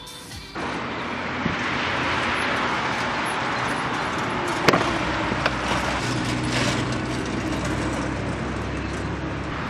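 Vehicle noise: a car running with steady road or traffic sound and a low hum, plus a sharp click about five seconds in.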